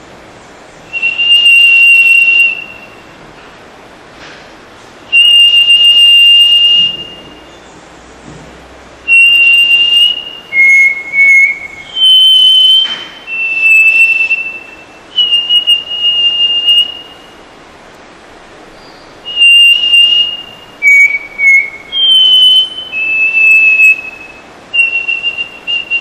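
A person whistling an imitation of the rufous-throated solitaire's (mountain whistler's) morning call: about a dozen clear, level whistled notes of one to two seconds each, stepping between a few pitches, with pauses between them, spaced widely at first and closer together later.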